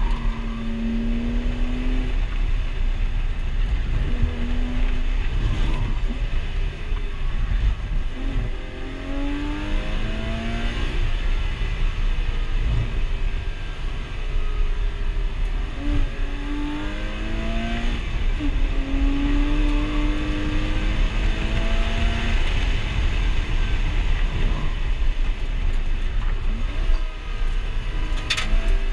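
A Porsche's flat-six engine, heard from inside the cabin, being driven hard on track. The revs climb and drop again and again as the driver works through the gears, over steady road and wind noise.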